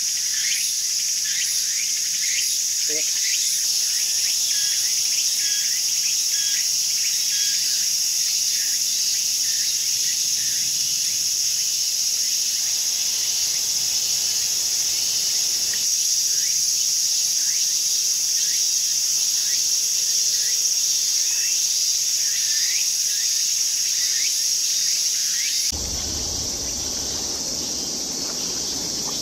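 Steady, high-pitched chorus of insects, with many short chirps repeating over it. About 26 seconds in it changes abruptly: a low rushing noise comes in and the insect sound grows thinner.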